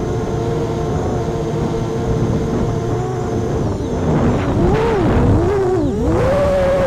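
Brushless motors and propellers of an FPV quadcopter (Emax 2207 2400 Kv motors on a 3S battery) whining as heard from its onboard camera, with wind rumble. The pitch holds steady for about four seconds, swoops down and up several times as the throttle is worked, then settles at a higher steady pitch.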